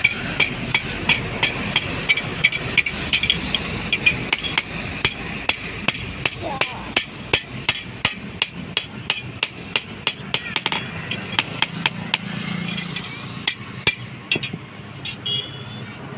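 Blacksmith's hammer striking hot steel on an anvil, forging a tong leg: a steady run of ringing blows at about three a second, thinning out to scattered strikes after about ten seconds.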